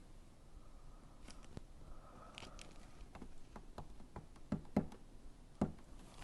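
Handling of small paper items and packaging from a product box: scattered light clicks and rustles, with a few louder soft knocks past the middle.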